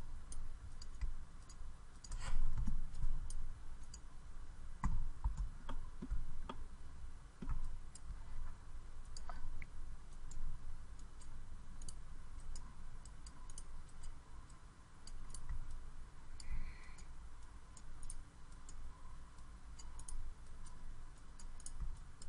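Computer mouse clicking at irregular intervals while editing a 3D mesh, with a few dull low thumps. The loudest thump comes about two seconds in.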